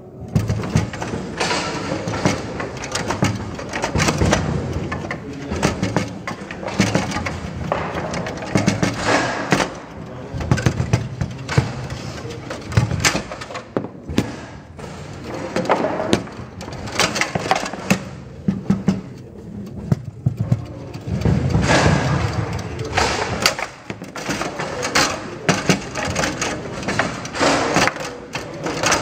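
Baby-foot (table football) game in play: the ball struck by the plastic player figures and the rods knocking, a quick, irregular run of sharp knocks and thuds.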